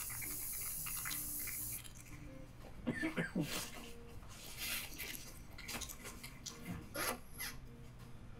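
Aerosol spray-paint can hissing steadily, cutting off about two seconds in. It is followed by a few short squeaks and scrapes.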